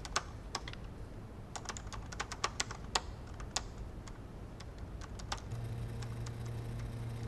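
Typing on a computer keyboard: irregular keystrokes, some in quick runs. A low steady hum comes in about five and a half seconds in.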